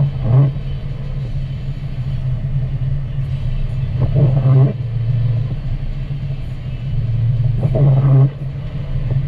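A car driving on a wet road, heard from inside the cabin: a steady low engine and tyre drone. The windshield wipers sweep across the glass three times, about every four seconds.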